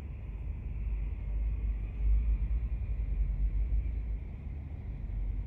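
A low, steady rumble that swells about two seconds in and eases off again after about four seconds.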